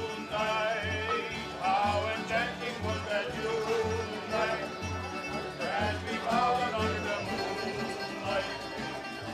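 Tamburica band playing a waltz: plucked tamburicas carry the melody and chords over a double bass marking the beat with a low note about once a second.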